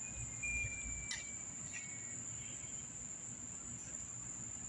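Crickets chirring in a steady, high, unbroken tone over a faint low rumble.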